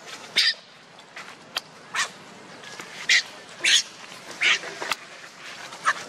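Infant macaque giving about six short, shrill distress squeals, roughly a second apart, while an adult macaque grabs and drags it.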